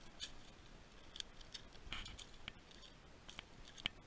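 Faint, irregular crisp crackles and clicks of dry leaf litter and twigs underfoot, the sharpest one near the end.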